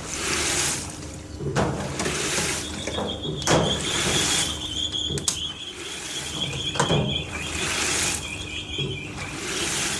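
LG TurboDrum top-loading washing machine agitating a full load of bedding, with water and laundry sloshing in a swish about every two seconds as the drum turns back and forth. A few sharp knocks come through, and a high squeal runs for several seconds through the middle.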